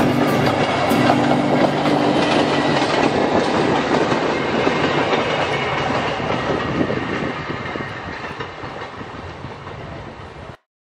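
Narrow-gauge rail motor car and the tank car it tows rolling past on the track, wheels clicking over the rail joints. The sound fades away over the last few seconds and then cuts off suddenly.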